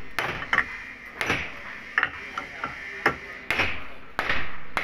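A hand hammer tapping a new ball bearing down into the metal end cover of an electric churner motor to seat it fully in its housing. About eight sharp metallic knocks at uneven intervals, each with a short ring.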